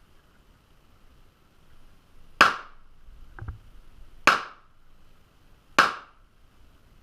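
Three pistol shots, spaced about a second and a half to two seconds apart, muffled by a closed GoPro housing. A faint double click falls between the first and second shot.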